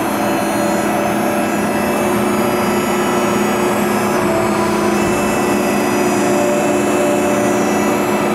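Faccin 4HEL3128 four-roll plate bending roll running under power: a steady mechanical drone with a few held tones, unchanging throughout.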